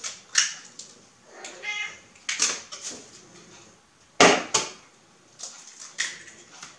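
Eggs being cracked against the rim of a mixing bowl: several sharp taps and clicks, the loudest pair about four seconds in.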